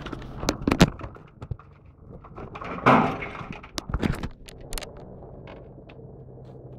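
Knocks and a loud rustle of the phone being handled, the loudest about three seconds in, over a steady low drone of a helicopter flying overhead.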